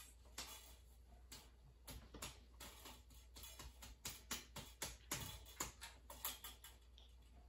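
Faint, irregular clicks and taps of plastic toy trucks being handled and set down on a wooden tabletop, a few per second.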